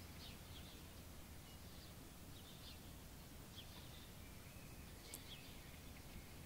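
Near silence: a faint low room hum with brief, faint high chirps about once a second.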